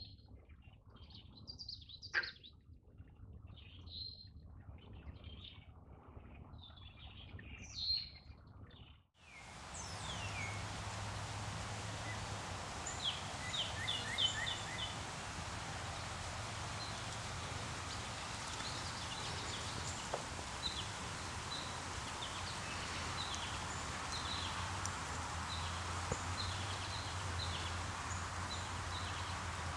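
Birds chirping, with scattered short calls over a quiet background. About nine seconds in the sound drops out briefly and returns as a louder steady hiss, with quick runs of bird calls and trills over it.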